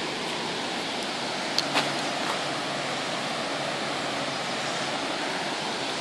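River water pouring over a weir, running high after rain: a steady rushing hiss, with a few light clicks about two seconds in.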